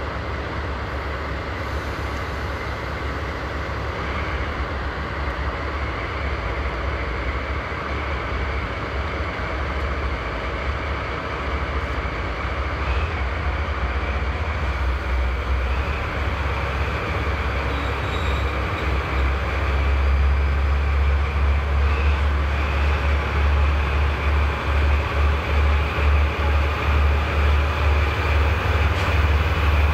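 JR Freight DD51 diesel-hydraulic locomotive with twin V12 engines, running as it hauls a container freight train slowly past. The deep engine drone grows louder as it draws near, and it takes on a throbbing pulse from about two-thirds of the way in.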